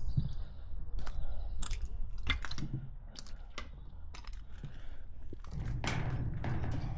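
Irregular crunches and sharp clicks of footsteps over debris, growing denser near the end.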